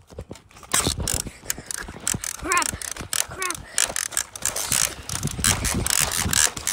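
Plastic X-Shot toy blaster's mechanism clicking and rattling rapidly and unevenly.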